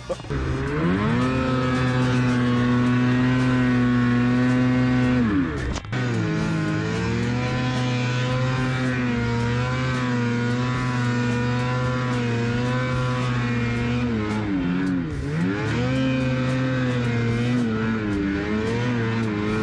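Two-stroke snowmobile engine held at high revs while the sled pushes through deep powder. The revs dip sharply and climb back about five and a half seconds in and again near fifteen seconds as the throttle is eased and reapplied, wavering slightly in between.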